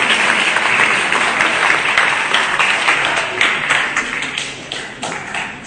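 Audience applauding, the clapping thinning out from about three seconds in and breaking into scattered single claps near the end.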